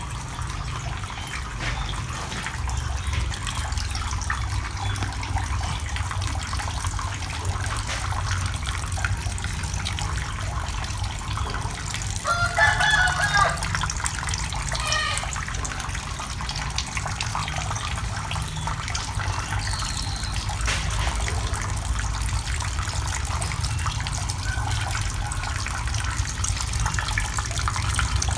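Steady rush of water running through the PVC pipes into a cement eel tank. A rooster crows once about twelve seconds in, a rising call that falls away over about three seconds.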